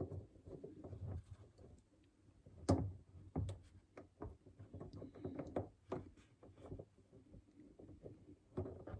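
Irregular light clicks, taps and knocks of hands fitting a cable back into place inside a fridge freezer, with one sharper knock about three seconds in.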